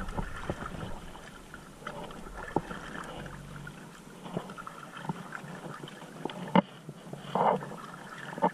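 Stand-up paddle strokes and water splashing around an inflatable paddleboard, with a few sharp knocks of the paddle. A low wind rumble eases off about four seconds in.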